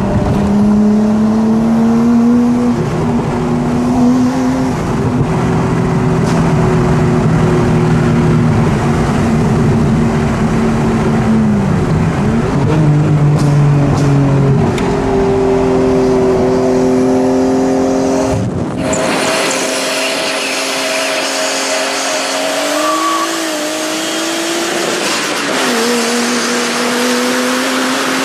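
Straight-piped Nissan RB25DET turbocharged straight-six running under way, heard from inside the cabin, its note climbing and gliding with throttle. The pitch dips and climbs again at a gear change a little under halfway through, and the deep bass drops out abruptly about two-thirds of the way in.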